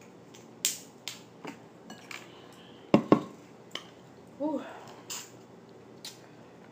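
Close-up eating sounds from a seafood boil: sharp clicks and snaps of crab shell and shrimp being peeled and bitten, with a louder double knock about three seconds in and a brief hum a little after.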